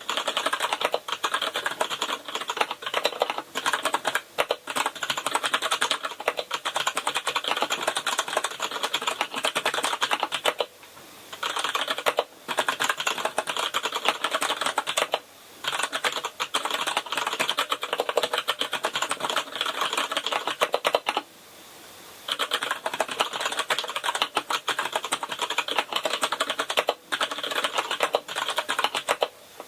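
Fast, continuous typing on a Kinesis Advantage ergonomic keyboard with Cherry MX Brown mechanical switches, a dense run of key clacks with brief pauses about eleven, fifteen and twenty-one seconds in.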